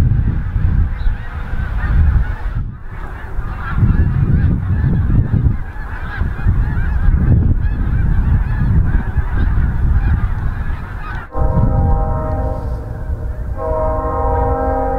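A flock of geese honking over a heavy low rumble. About 11 seconds in it cuts to a locomotive air horn holding a chord of several notes, which grows louder near the end as a freight train approaches the crossing.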